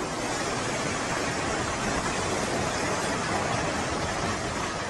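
Steady rushing noise of a building collapsing in a controlled demolition, its rubble and dust pouring down without separate bangs.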